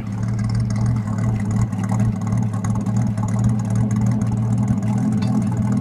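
The engine of a 1998 Holden VS Commodore ute, a replacement VT Commodore engine, idling steadily with a deep exhaust note.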